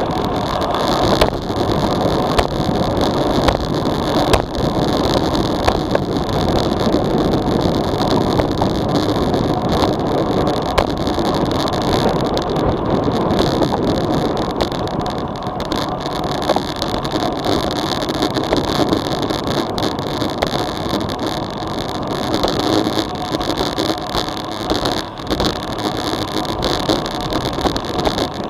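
Wind rushing over a bike-mounted action camera's microphone with tyre and road noise as a road bike descends at about 30 to 40 km/h, with small knocks from bumps in the road.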